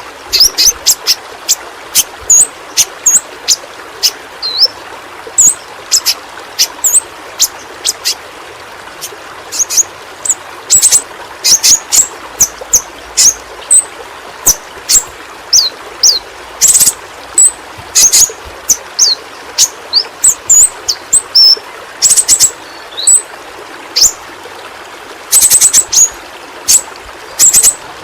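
Yellow-rumped flowerpecker (pentis pelangi) calling: rapid bouts of short, sharp high-pitched chips mixed with quick sliding notes, over a steady hiss.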